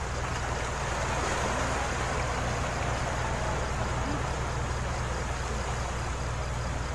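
Seawater washing and breaking against a rocky shore, a steady rushing noise, over a steady low hum and a faint high ticking about three times a second.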